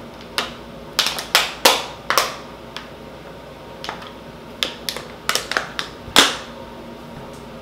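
Drinking water from a plastic bottle: a run of short gulping clicks and crackles, with a louder knock about six seconds in.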